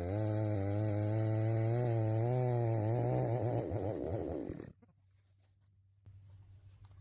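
Chainsaw engine running at a steady pitch, then wavering and falling as it winds down, and cutting off abruptly about four and a half seconds in.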